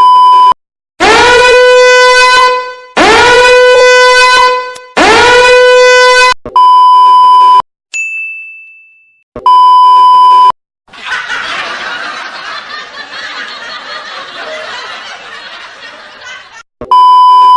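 A run of meme sound effects separated by steady censor bleeps: three long, loud horn blasts like an air horn, then a single ringing ding, then several seconds of dense noisy crackle.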